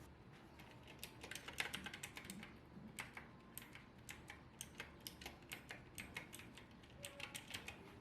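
Typing on a mechanical keyboard: faint, quick, irregular key clicks, starting about a second in.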